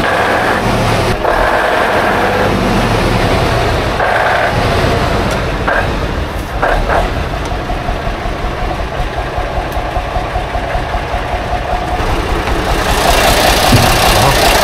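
The diesel engine of a 1980 Škoda RTO fire truck, running after ten years standing. It is loud and rough for the first six seconds, then quieter and steadier with a couple of sharp clicks, and it grows louder again near the end.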